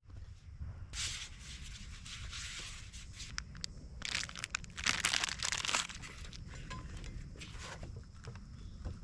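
Crinkling and crumpling, in two spells: a first about a second in and a louder one about four seconds in, over a steady low rumble.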